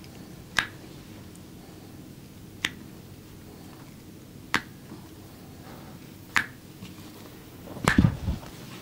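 Sharp snaps during a massage: four single snaps about two seconds apart, then a louder flurry of snaps with a dull thud near the end.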